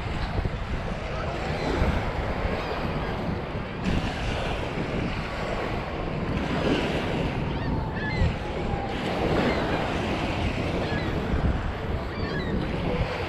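Lake Michigan waves washing onto the beach, with gusty wind buffeting the microphone.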